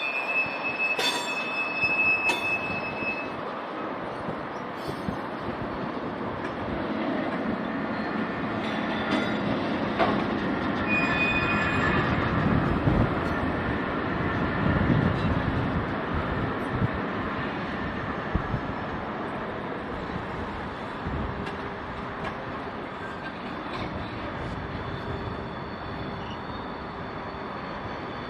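Freight wagons rolling through a hump yard: a steady rumble of steel wheels on the rails, with a high-pitched wheel squeal in the first few seconds and again briefly about eleven seconds in. A few sharp clanks come near the start.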